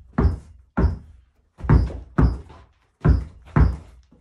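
Basketball dribbled hard against the floor during a dribbling drill: six sharp bounces, coming in a short-long rhythm, with about half a second and then about a second between them.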